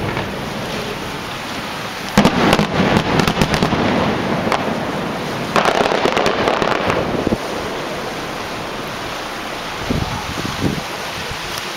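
Aerial fireworks shells bursting with crackling stars: a bang about two seconds in followed by a few seconds of dense crackle, another burst with crackling around six seconds in, and two more thumps near the end.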